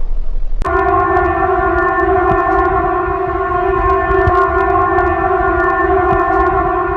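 Civil defence warning siren holding a steady, unwavering tone, over a low rumbling noise. It cuts in abruptly about half a second in, right after a falling siren tone breaks off.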